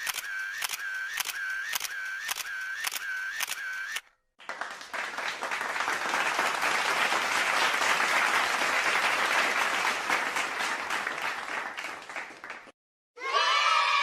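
A camera shutter clicking in a rapid series, about two clicks a second, stopping about four seconds in. Then applause, a dense patter of clapping lasting about eight seconds. Near the end a new sound starts.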